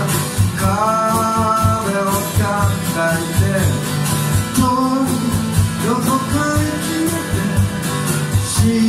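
Live acoustic guitar strummed while a man sings, with percussion keeping a steady beat underneath.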